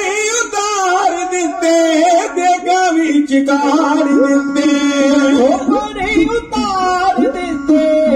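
Dhadi folk music: male voices singing with a bowed sarangi gliding between notes, over a steady held tone, accompanied by dhadd hand drums.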